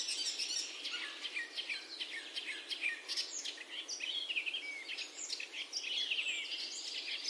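Several birds chirping and calling in many short, quick notes, some falling in pitch, over a steady background hiss.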